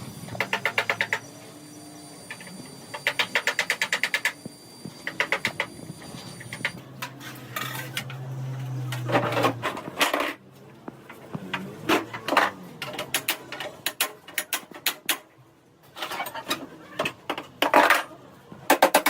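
Repeated bursts of rapid metallic clicking, about ten clicks a second, from a hand tool working on metal during truck repair. A brief low hum comes about eight seconds in.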